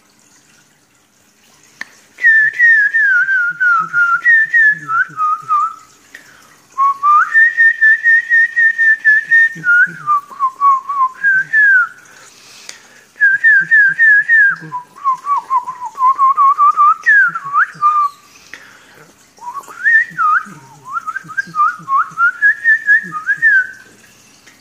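Loud whistling in clear notes, starting about two seconds in: phrases of quick falling notes broken by short pauses, with one long wavering held note in the middle.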